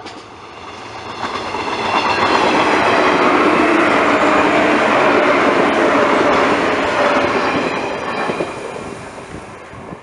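JR East 115-series electric local train passing at close range, its wheels clattering over the rail joints with a few steady whining tones underneath. It swells over the first two seconds, stays loud through the middle, and fades as the last cars go by.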